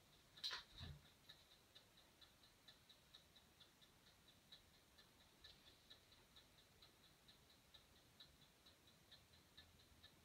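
Faint, even ticking, about four to five ticks a second, in near silence. About half a second in, a brief louder sound sweeps down in pitch.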